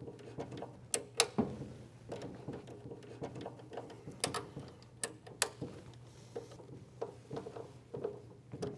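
Scattered sharp plastic clicks and small taps from wires being hooked into screw-captive terminal blocks, the blocks snapped shut and their screws tightened down. The loudest clicks come in pairs about a second in and about four seconds in, over a low steady hum.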